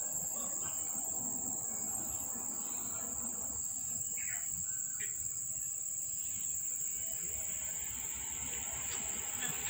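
Steady high-pitched insect chorus, with a few short bird chirps about four and five seconds in.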